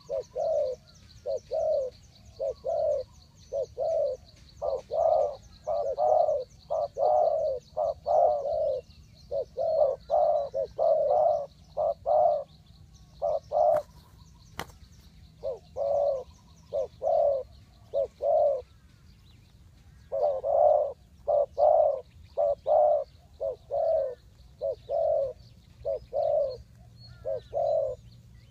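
Spotted doves cooing over and over: low, hoarse coo notes in phrases of several, with short pauses between phrases. A faint high trill sits behind them in the first half, and a sharp click comes about halfway through.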